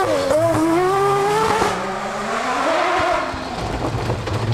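Rally car engine at high revs as the car passes close by on a dirt stage. The pitch dips briefly, then climbs steadily as it accelerates away. From about halfway the engine note is lower and weaker, with rough tyre and gravel noise from the loose surface.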